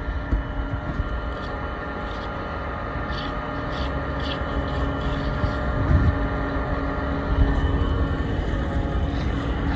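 Concrete mixer truck's diesel engine running steadily, a continuous droning hum with a few steady tones in it.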